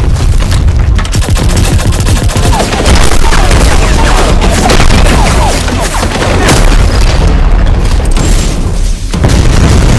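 Dense, loud explosion and blast sound effects from an animated battle: booming hits and rapid bursts over a heavy low rumble, with sweeping whooshes in the middle.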